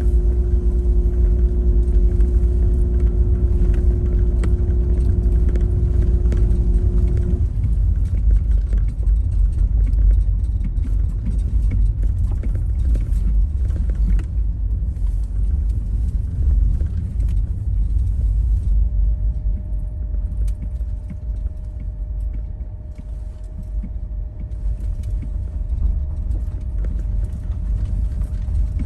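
A car driving, with a steady low rumble of engine and road noise. A steady engine hum drops away about seven seconds in, leaving the rumble.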